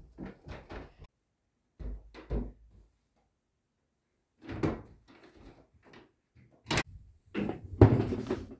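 Footsteps down carpeted stairs, then a wooden interior door opened about four and a half seconds in, with a sharp latch click a little later. Near the end comes the loudest part, a longer stretch of knocks and rubbing.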